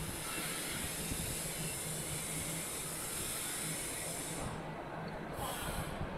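Factory background noise: a steady high hiss over a low rumble. The hiss cuts off about four and a half seconds in and comes back briefly near the end.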